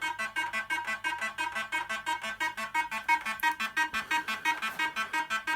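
1980s JPM Nudge Double Up Deluxe fruit machine playing its electronic tune: a fast, even run of short pitched bleeps, about five or six a second.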